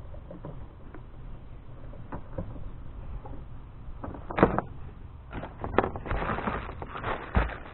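Hand work on parts and tools: scattered clicks and knocks, a sharp knock about four and a half seconds in, then a couple of seconds of rustling and clatter with another thump near the end.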